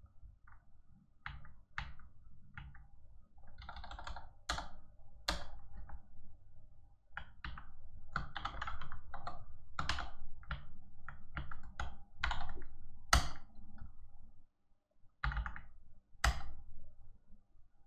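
Typing on a computer keyboard: irregular keystrokes, some in quick runs, with a short pause near the end before a few more key presses.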